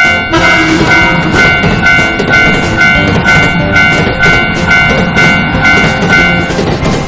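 Japanese level-crossing warning bell ringing its 'kan-kan' at about two strikes a second, stopping shortly before the end, over the rumble of a passing train.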